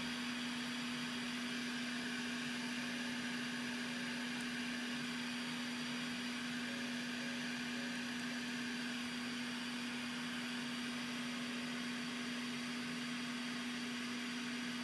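A small fan or blower running steadily, a constant whir with a steady low hum under it.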